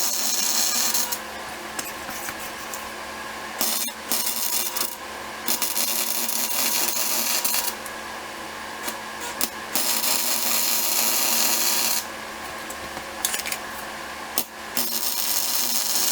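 Arc welder joining steel: the arc's steady hiss in runs of two to three seconds, stopping and starting again about four times.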